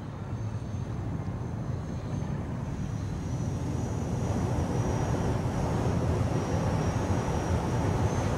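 Airplane flying low, a steady rushing drone that grows louder throughout, with a faint high-pitched whine coming in about three seconds in.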